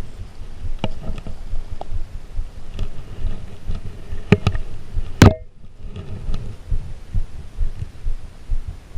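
A single shot from a Ruger 10/22 .22 LR rifle about five seconds in, the loudest sound, preceded by a couple of sharp clicks. Low rumbling wind and handling noise on the microphone runs underneath.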